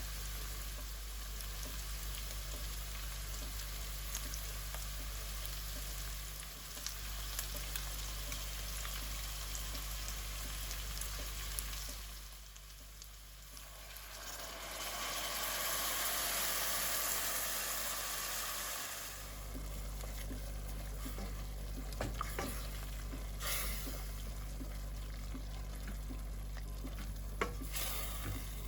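Food sizzling in oil in a frying pan, stirred with a utensil that clicks against the pan now and then. The sizzle drops away for a moment near the middle, then swells louder for a few seconds before settling again, over a steady low hum.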